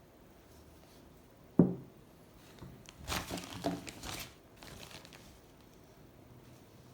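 A single sharp knock of a metal padlock being set down, then about a second and a half of crinkling as a hand rummages in the bag of old padlocks for the next one.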